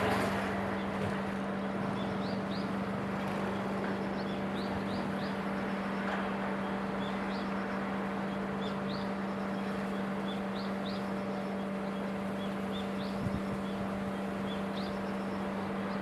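A steady low hum, with a bird chirping again and again in short, high, rising notes, often in pairs. A small knock about thirteen seconds in.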